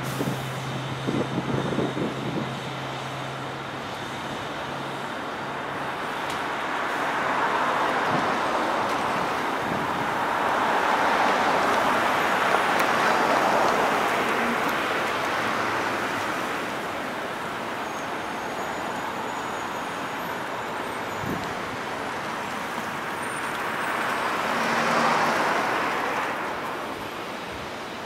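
Road traffic at a busy junction: cars driving past in swells of engine and tyre noise, loudest in the middle and again near the end. A low steady engine hum fades away within the first several seconds.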